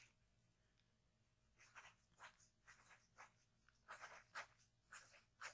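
Faint, soft scratchy rustles of notepad paper being handled: near silence for about a second and a half, then several short strokes spread through the rest.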